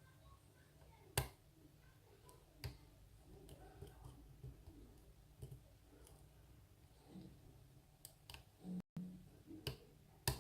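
Lock pick and pry-bar tension tool working the pin stack of a Steelpinnings challenge lock. There are scattered sharp metallic clicks: one about a second in, one near three seconds, and several close together near the end.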